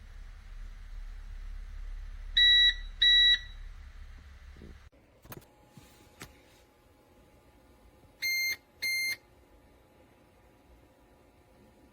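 CyberPower CP1500AVRLCD3 UPS beeper sounding short electronic double beeps: a loud pair about two and a half seconds in and a quieter pair near nine seconds. Between them a low hum cuts off suddenly about five seconds in, followed by a few clicks.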